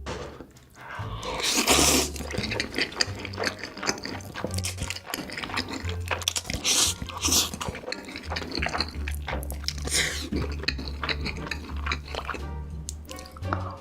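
Background music with a low plucked bass line, over close-miked eating sounds: many short wet clicks and smacks of food being bitten and chewed, loudest about two seconds in.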